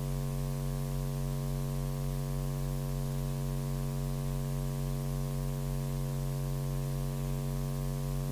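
Steady electrical mains hum with a stack of evenly spaced overtones, unchanging in pitch and level, from the live commentary's sound system.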